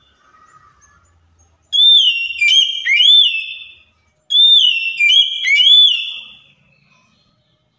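An Oriental magpie-robin (kacer) sings two loud phrases of clear, slurred whistles, each about two seconds long, with a short pause between them. Each phrase runs three or four rising and falling whistled notes into one another.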